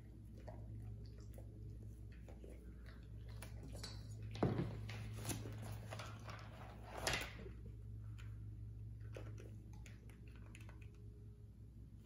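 Quiet room tone with a steady low hum, scattered small clicks and handling noises, and two louder brief scuffing knocks about four and a half and seven seconds in.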